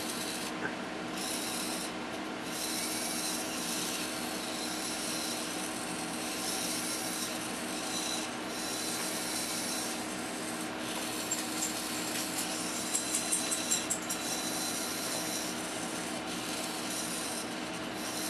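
Two continuous-rotation hobby servos running, a steady gear-motor whir whose upper hiss thins and returns several times as tilting the accelerometer board changes their drive. A short run of small clicks comes about two-thirds of the way through.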